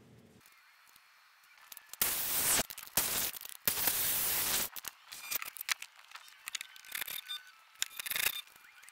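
Circular saw cutting through a 2x4 in three loud bursts, starting about two seconds in. This is followed by scattered lighter clicks and rattles of drilling and handling wood.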